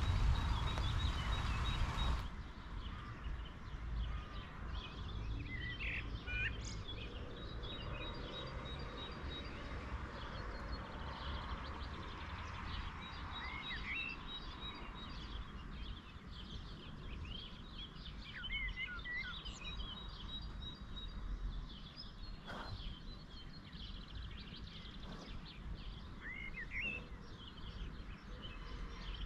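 Birds chirping and calling on and off over a steady low rumble of wind noise. The first two seconds hold a louder rushing noise that cuts off abruptly.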